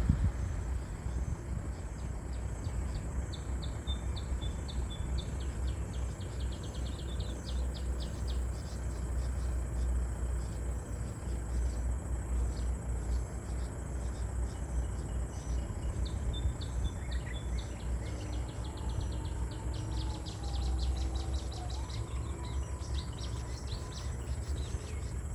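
Insects calling: a steady high-pitched drone with rapid pulsed chirping over it, like crickets or cicadas. A low rumble sits underneath, and faint bird-like whistles come in after the middle.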